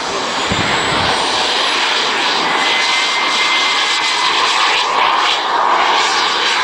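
RC model jet's turbine engine running at high power with a steady, loud rushing hiss as the model accelerates down the runway and lifts off.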